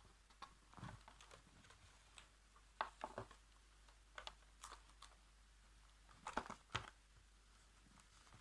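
Handling of a paper colouring book and pen: scattered soft taps and brief paper rustles, in small clusters about a second, three seconds and six and a half seconds in.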